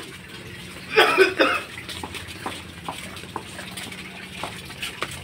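A man coughs twice in quick succession about a second in. Faint scattered taps follow.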